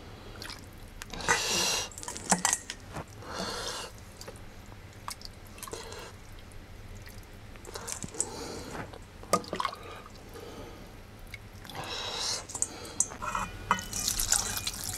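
A ladle clinking and scraping in a stainless steel pot while stew broth drips and splashes into a stainless steel bowl. Near the end, broth pours from a pot into the bowl in a steady stream.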